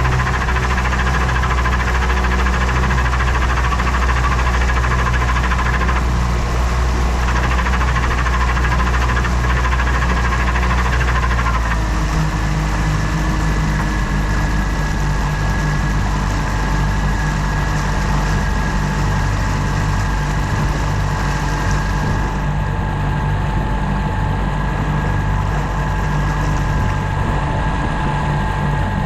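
Outboard motor running steadily during break-in; its low note changes about twelve seconds in.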